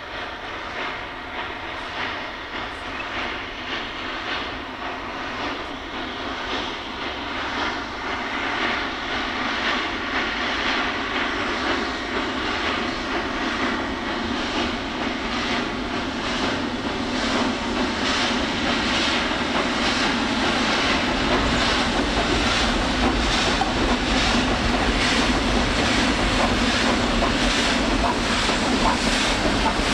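Pakistan Railways HG/S class 2-8-0 broad-gauge steam locomotive working a freight train, its exhaust beating steadily and growing louder as it approaches. About two-thirds of the way in, a deep rumble joins as the train runs onto the steel girder bridge.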